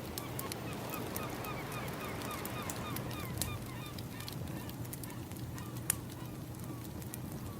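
Crackling firewood over a steady low wash of ambient wave sound, with a bird calling in a quick run of short honking notes, about four a second, that fades out after about six seconds.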